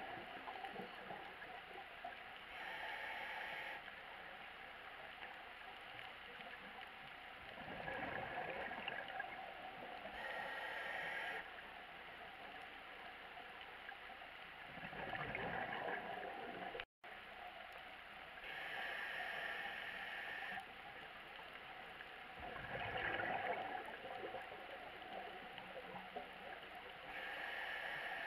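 Scuba regulator breathing underwater: a hiss with a faint whistle as the diver inhales through the demand valve, then a gurgling rush of exhaled bubbles. The cycle repeats about every eight seconds, about four breaths in all.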